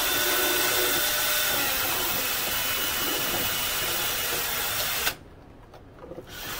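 Electric drill running steadily, spinning a bent steel push rod used as a makeshift bit to drill out a small hole in a tight corner. It cuts off suddenly about five seconds in and starts up again near the end.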